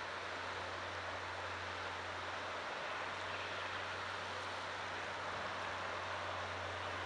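Steady rushing of the high, fast-flowing River Nore, with a low steady hum underneath.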